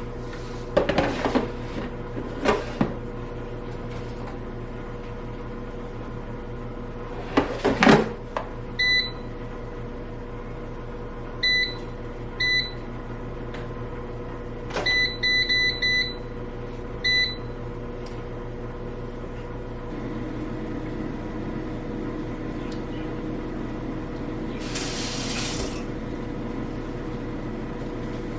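Air fryer: a few knocks and clatter as the basket is handled, then short electronic beeps from its control panel, singly and in quick runs, as settings are keyed in. About twenty seconds in, the fan hum grows fuller as it starts cooking, with a brief hiss a few seconds later.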